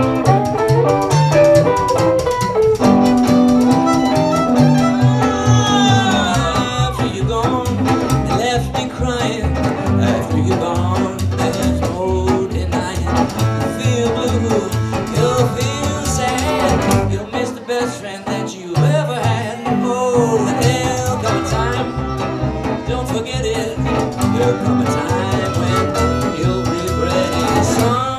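Live acoustic string trio: a fiddle leads with sliding, bowed lines over a hollow-body electric guitar and a plucked upright bass. The low bass notes drop out for about a second a little past the middle, then come back.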